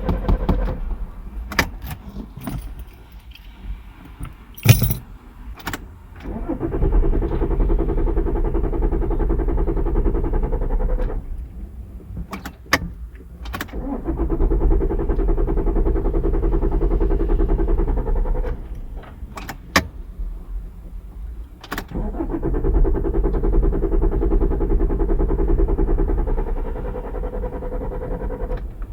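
Car engine being cranked by its starter motor in three long attempts of about five seconds each, turning over rhythmically without firing: the car won't start. Sharp clicks come in the pauses between attempts.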